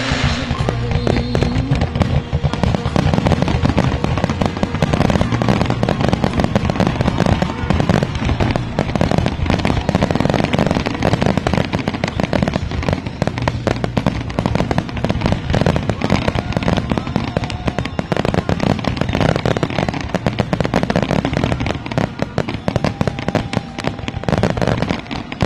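Aerial firework shells bursting in a dense, rapid barrage, bangs overlapping one another with no break.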